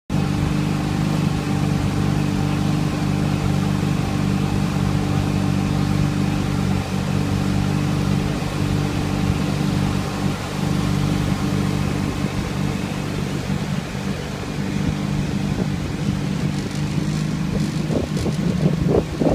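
Boat motor running at a steady cruising speed with an even, unchanging drone as the boat planes across the water. About eighteen seconds in the drone gives way to gusts of wind buffeting the microphone.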